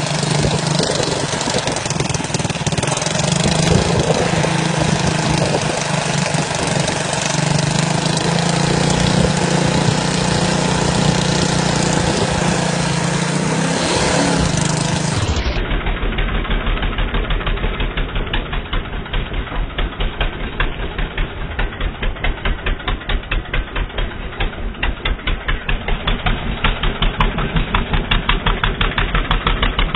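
ATV engine running at a steady speed. About halfway through the sound changes abruptly to an engine idling with a regular, pulsing beat.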